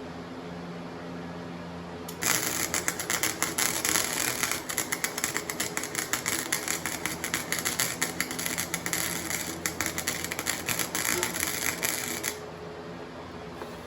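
Flux-core arc welding with a Harbor Freight Flux 125 welder: the arc crackles and spits with rapid irregular clicks for about ten seconds, starting about two seconds in and cutting off abruptly. The welder's steady hum runs underneath.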